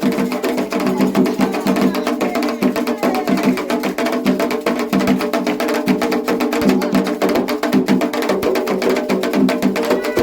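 Candomblé ceremonial music: atabaque hand drums and other percussion playing a fast, dense rhythm of sharp strokes, over a steady pitched layer.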